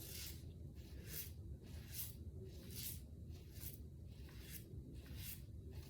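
Double-edge safety razor scraping through lathered stubble on the first pass, a faint run of short, even strokes about two a second.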